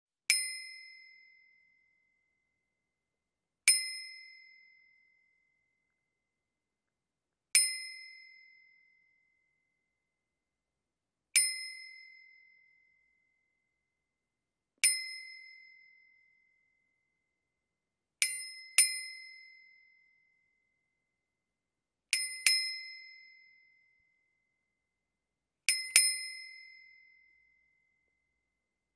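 Bicycle bell rung eight times: five single dings a few seconds apart, then three quick double dings. Each ring fades out over about a second and a half.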